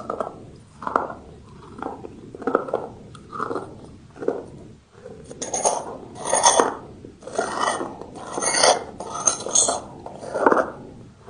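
Close-up chewing of brick pieces: crunching and grinding in the mouth at about one chew a second, louder and grittier with sharp crunches through the middle stretch.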